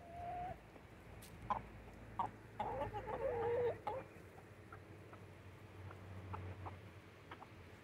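Backyard chickens clucking and calling, with a louder, longer wavering call about three seconds in.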